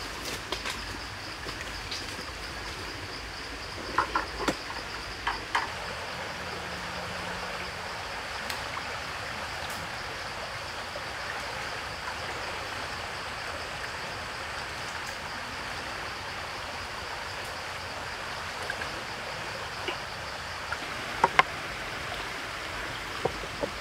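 Steady forest background: an even hiss with a constant high-pitched drone, broken by a few light clicks and knocks of food and utensils being handled on the table, a cluster about four to five seconds in and a couple more near the end.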